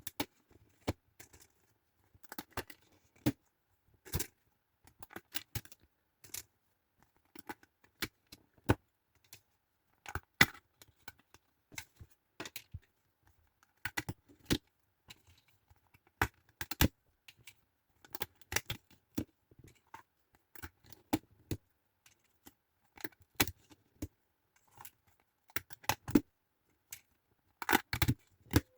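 Card game box and its contents being handled and unpacked at close range: irregular sharp clicks, taps and short rustles with quiet gaps between.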